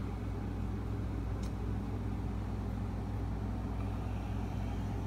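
A steady, unchanging low hum, like a machine running or distant traffic, with no rise or fall.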